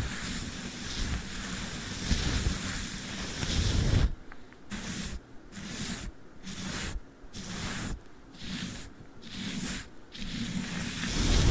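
Brush and sticky tape worked close against the microphone: a dense scratchy hiss with low thumps. About four seconds in it turns into separate swishing strokes, roughly one every two-thirds of a second.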